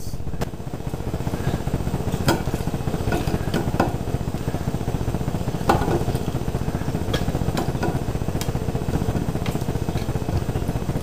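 A plastic spoon knocking and scraping inside an opened tin can of carrots, giving a handful of short sharp clicks spread over several seconds, over a steady low hum.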